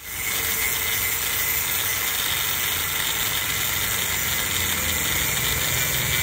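Angle grinder running steadily, its disc grinding against a small metal part.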